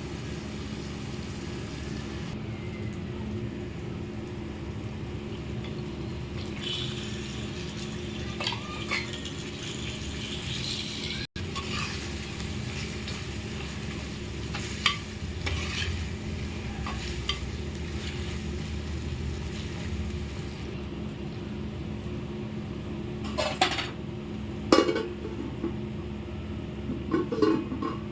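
Chicken curry sizzling in a cooking pot while a metal spoon stirs it, scraping and clinking against the pot now and then, with several sharper clinks near the end, over a steady low hum.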